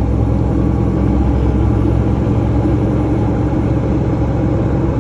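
Semi-truck's diesel engine running steadily, heard from inside the cab, with a constant low hum.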